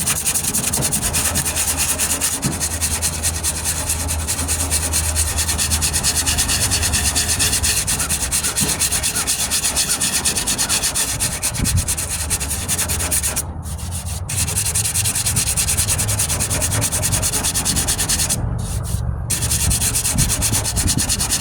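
Coarse 40-grit sandpaper being worked by hand in quick back-and-forth strokes over cured Bondo body filler on a truck tailgate, leveling the filler flat. It makes a steady rasping scrape that stops briefly twice in the second half.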